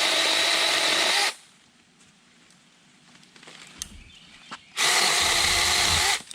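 A 36-volt battery-powered mini chainsaw with a 6-inch bar runs in two short bursts on its variable speed trigger, a steady electric motor and chain whine. The first burst stops about a second in, and the second starts near the end and runs for about a second and a half.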